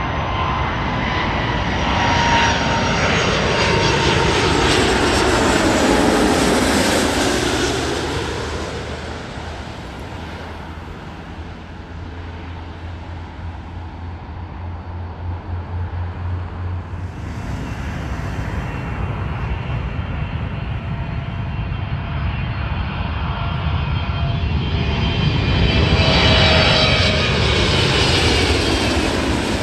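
Jet airliners on approach passing low overhead. The engine noise swells and peaks with a whine falling in pitch about five seconds in, then eases off. A second aircraft swells to a similar peak near the end.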